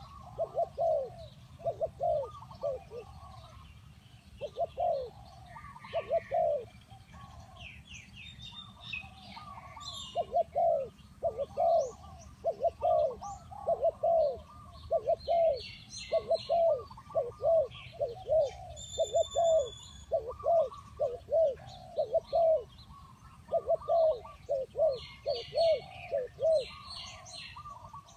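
Spotted dove cooing: phrases of short, low, repeated coo notes, with brief pauses between groups. Other small birds chirp at a higher pitch in the background.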